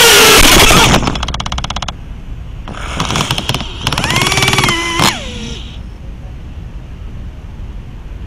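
Brushless motors of a KingKong 90GT micro quadcopter, heard through its onboard camera. A loud motor whine cuts out about a second in and gives way to about a second of rapid, even ticking. Then come two short bursts of whine, and the second ends in a sharply falling pitch as the motors stop, a little after five seconds.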